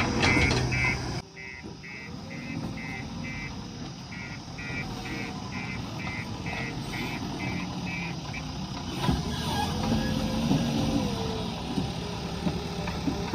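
JCB backhoe loader's reversing alarm beeping about two and a half times a second over its running engine, the beeps stopping about eight seconds in. The engine noise drops suddenly about a second in, and near the end its pitch rises and falls.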